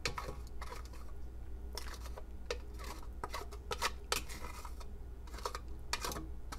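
Wooden spoon scraping out a small glass bowl into a stainless steel saucepan, with light irregular clicks and scrapes of wood on glass and metal.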